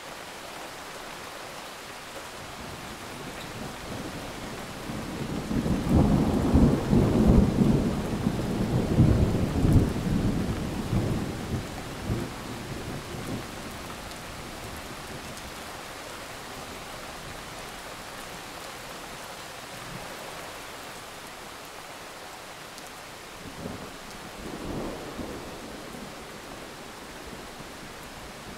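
Steady rain falling, with a long roll of thunder starting about five seconds in that peaks and then rumbles away over several seconds. A shorter, fainter rumble of thunder comes near the end.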